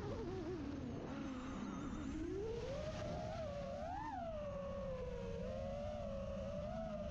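FPV quadcopter's electric motors whining, the pitch sliding up and down as the throttle changes: low at first, climbing steeply from about two seconds in to a peak near four seconds, then dipping and wavering.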